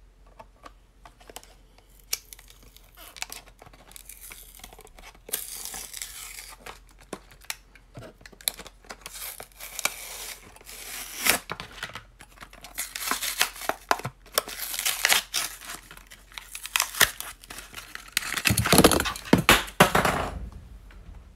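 A Hot Wheels blister card being torn open by hand: the cardboard backing rips and peels away from the plastic blister in a run of irregular tears and crackles. The loudest stretch of tearing and crinkling comes near the end.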